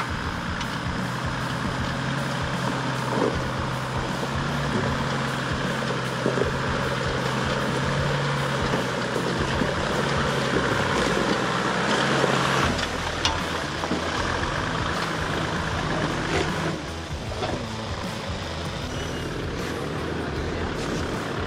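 Toyota 80 Series Land Cruiser engine pulling under load as the truck crawls up a rutted rock track in low gear. The engine note holds steady, then shifts about two-thirds of the way through.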